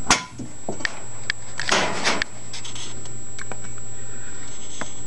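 A breaker panel door being opened: a sharp metallic click near the start, a few light taps, and a short rubbing scrape about two seconds in, over a steady low hum.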